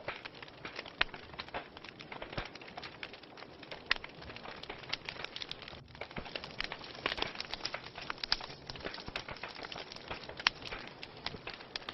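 Wood fire burning in a fireplace: steady crackling, with frequent sharp pops and snaps over a soft hiss.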